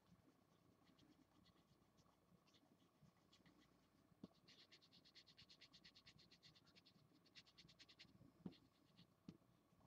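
Felt-tip marker scratching faintly on paper as a drawing is coloured in. About halfway through it turns to a quick, even back-and-forth scribble of about eight strokes a second, with a few soft knocks.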